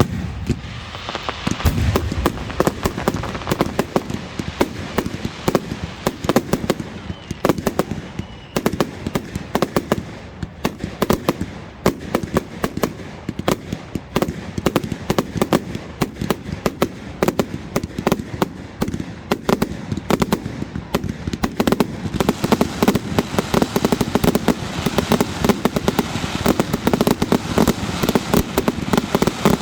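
Fireworks display: a sudden start into a continuous barrage of rapid bangs and crackles, many a second, growing denser and louder about two-thirds of the way through.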